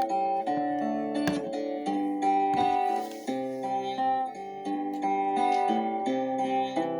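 Instrumental music: calm acoustic guitar playing slow, sustained chords and picked notes.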